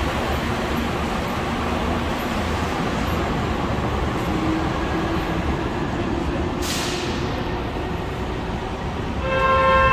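Disneyland parking tram running with a steady rumble and noise, a short hiss of air about two-thirds of the way through, and a ringing chime starting near the end.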